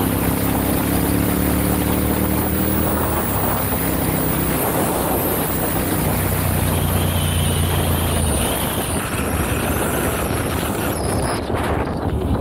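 Ducati Monster 796's air-cooled L-twin engine running under way, with wind and road noise over the microphone. The engine note fades about eight seconds in, leaving mostly wind rush.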